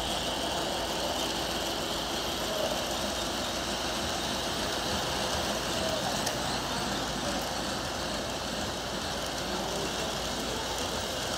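Model trains running on a layout's track, a steady, even noise, with voices murmuring faintly underneath.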